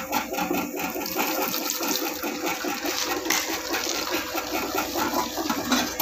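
Homemade 200-watt stainless-steel dough mixer running: its motor hums steadily under the wet churning and slapping of dough in the bowl, the dough a little short of water. A knock near the end as the metal lid is set on the bowl.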